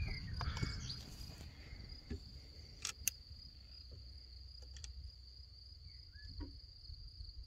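Steady high-pitched trill of crickets over a low background rumble, with two sharp clicks about three seconds in and a few faint short chirps near the end.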